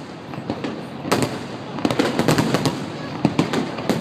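Fireworks display: clusters of sharp bangs and crackling bursts in quick succession, about a second in, through the middle and again near the end.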